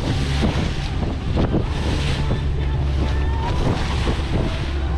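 A motorboat running fast through choppy water: a steady low engine hum under the rush of spray and water along the hull, with wind buffeting the microphone.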